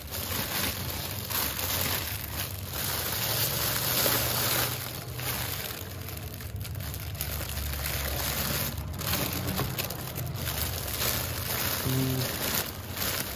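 Clear plastic bags crinkling and rustling as they are handled and pulled open.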